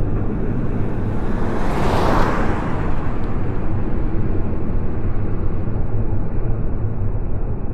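Medium box truck's engine running as the truck pulls away along the road, with a brief hissing rush about two seconds in.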